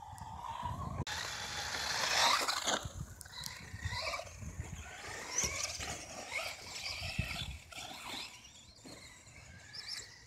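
Radio-controlled off-road cars driving on a dirt track, their motors whining up and down in pitch as they speed up and slow down, with tyres scrabbling over the dirt and short knocks from landings and bumps.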